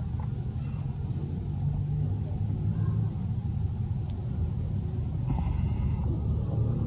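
Steady low rumble, with a faint short high-pitched sound about five seconds in.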